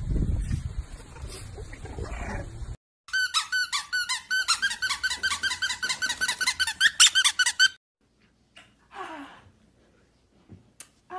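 Wind rumbling on the microphone, then about three seconds in a loud run of rapid high-pitched squeaks, several a second, lasting about four and a half seconds and stopping suddenly. After that only a few faint short sounds.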